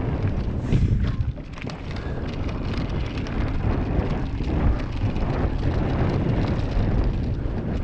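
Mountain bike rolling fast down a dirt and gravel trail: wind buffeting the action camera's microphone and tyres rumbling over the ground, with frequent small knocks and rattles from the bike over rough spots.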